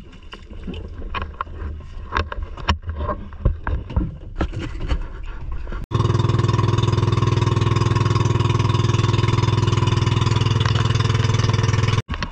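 Irregular knocks and clatter over a noisy background, then, after an abrupt cut about halfway in, a boat engine running loud and steady at an even speed for about six seconds before another abrupt cut.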